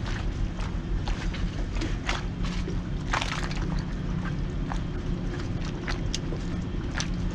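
Choppy water lapping and slapping against a small boat's hull in irregular splashes and clicks, with a longer splash about three seconds in, over a steady low hum.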